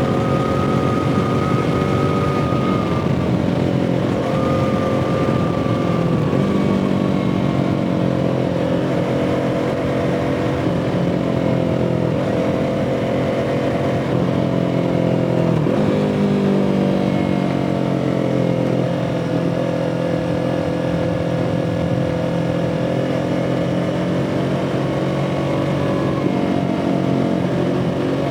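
2017 Yamaha R3's parallel-twin engine running under way, its note rising and falling with the throttle, with a sharp dip and quick recovery about sixteen seconds in.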